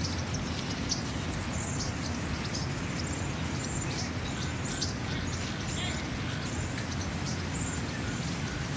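Steady outdoor city street noise, a dense hum of traffic and a crowd, with many short high chirps of small birds over it.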